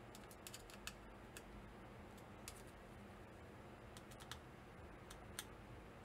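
Faint, irregular small clicks and ticks of a small screwdriver working the screws that hold the keyboard-calculator's circuit board to its standoffs.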